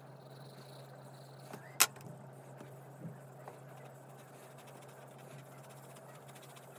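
A single sharp click about two seconds in, a pencil being put down on the desk as it is swapped for a blending brush, followed by two faint knocks a second later. A low, steady hum runs underneath.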